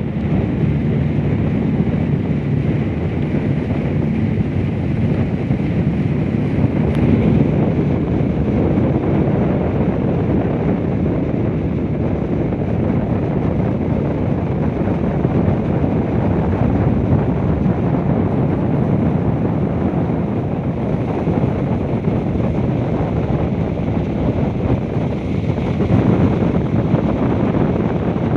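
Wind rumbling on the microphone over the steady drone of a fiberglass speedboat's engines and rushing water from its wake.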